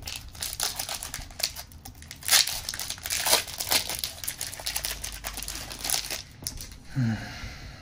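Foil booster-pack wrapper of trading cards crinkling and tearing as it is opened by hand, a dense run of crackles that stops about a second before the end.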